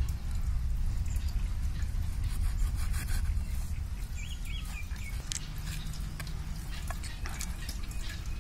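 Knife blade cutting through raw chicken on a metal plate: irregular soft clicks and crackles as it goes through skin and joints, over a steady low rumble.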